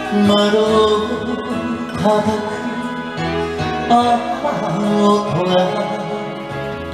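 A man singing into a handheld microphone over a karaoke backing track, holding several long notes.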